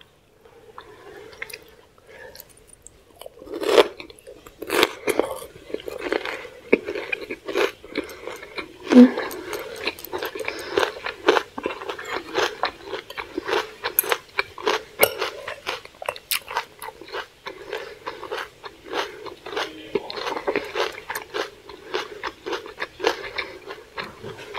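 Close-miked chewing of crispy gochujang-glazed fried chicken with boiled vegetables, heard as wet mouth sounds and sharp crunchy clicks about two to three times a second, starting a few seconds in.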